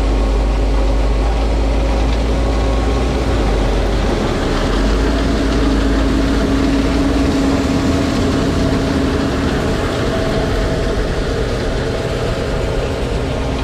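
Large diesel engine of farm harvest machinery running steadily at a constant speed: a deep rumble under a steady hum.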